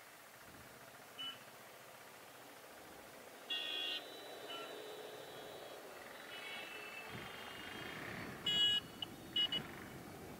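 Vehicle horns beeping in city traffic: short honks scattered through the stretch, one held for about half a second a few seconds in and the loudest burst near the end. Under them a low rumble of traffic and road noise that grows as the motorcycle pulls away about seven seconds in.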